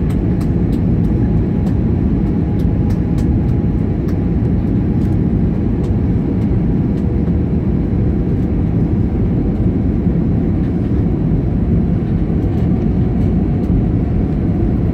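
Steady low roar of engine and airflow noise inside an Airbus A320's cabin during descent on approach to land, heard from a window seat, with a faint steady tone above the roar.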